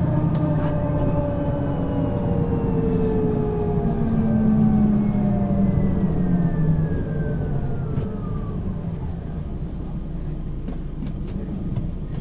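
Mercedes-Benz O 530 G Citaro articulated bus with a Voith automatic gearbox, heard on board as it slows. The engine and drivetrain tones fall steadily in pitch together with a thin high whine. The whine fades out about nine seconds in, leaving a lower, steadier running sound.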